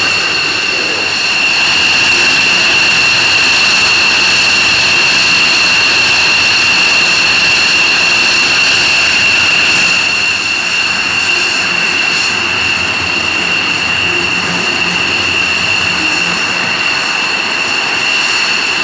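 Jet aircraft engines running with a steady high-pitched turbine whine over a broad rush. The sound is a little louder for the first half, then eases slightly.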